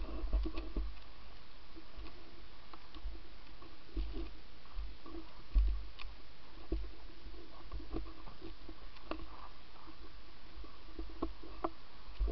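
Low rumbling thumps of handling and wind on a moving camera's microphone, with scattered light clicks and crunches throughout.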